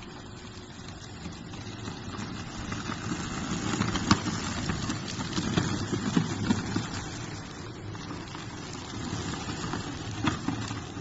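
Manual push sweeper rolling and brushing sand off pavement: a steady scraping rumble that grows louder after a couple of seconds, with a few sharp clicks, the loudest about four seconds in.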